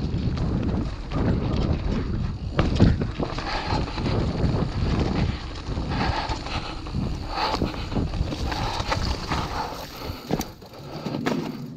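Mountain bike riding fast down a wet, muddy dirt trail: wind buffeting the microphone over the rumble of tyres on wet ground, with frequent knocks and rattles from the bike over bumps. It eases off a little near the end.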